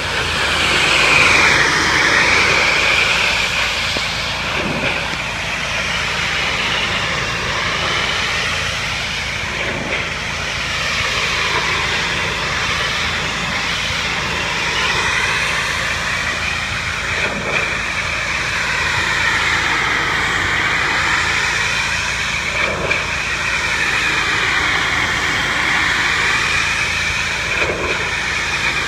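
Pressure washer running steadily: a continuous drone under the loud hiss of the water jet striking siding. The hiss swells and sweeps up and down in pitch as the spray moves back and forth across the wall.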